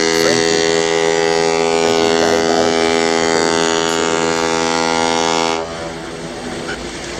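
An icebreaker ship's horn blowing one long, steady, many-toned blast that cuts off abruptly about five and a half seconds in, leaving a lower rumble of background noise.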